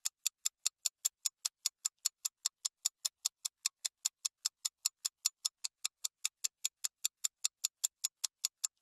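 Clock-like ticking sound effect: sharp, high-pitched ticks at an even rate of about five a second, laid over a fast-forwarded stretch to mark the skipped time.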